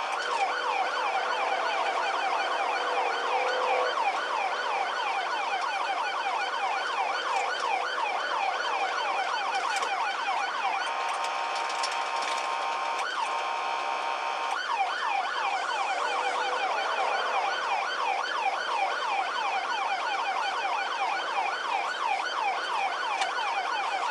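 Police cruiser's electronic siren on a fast yelp, heard from inside the car, switching briefly to a steady tone about eleven seconds in and again around thirteen seconds in.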